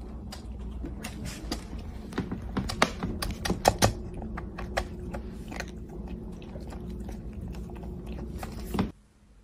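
Cat crunching dry kibble from a plastic bowl: a run of sharp, irregular crunches that stops abruptly near the end.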